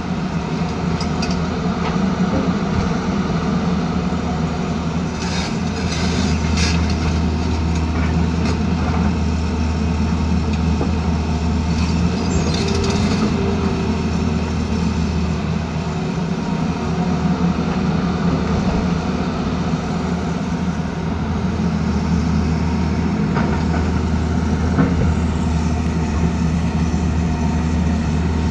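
Tata Hitachi Zaxis 220 excavator's diesel engine running steadily under working load as it shifts stones, with a few short knocks and scrapes about five to seven seconds in and again around twelve seconds.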